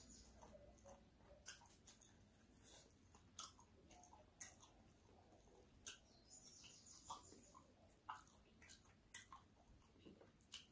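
Faint close-up eating sounds: wet chewing, lip smacks and sticky clicks from a mouthful of yellow garri (eba) with peanut soup, as fingers work more of the food in the bowl. A bird chirps a quick run of rising notes about six seconds in.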